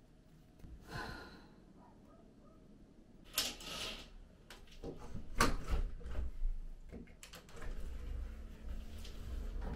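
Household handling noises: a handful of short knocks and scraping rustles a second or two apart, with a low rumble growing in the second half.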